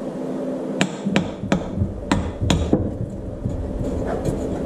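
A small hammer rapping the side of a wooden sand-casting flask: about six sharp knocks over two seconds, starting just under a second in.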